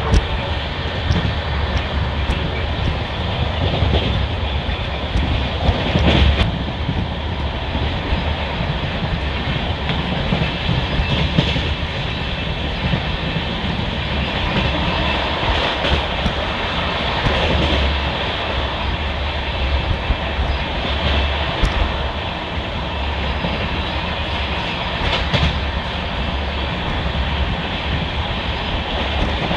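Passenger train running on the line, heard from on board: a steady rumble of coach wheels on the track, with an occasional clack as the wheels pass over rail joints.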